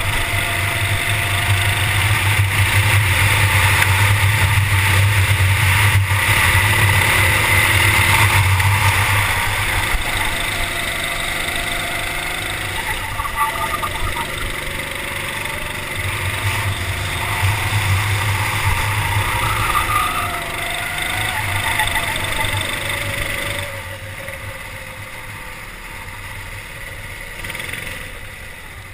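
Go-kart engine heard from on board, its revs rising and falling as the kart accelerates and lifts through the corners. It is loudest over the first ten seconds and again a few seconds before twenty, and falls away over the last five seconds.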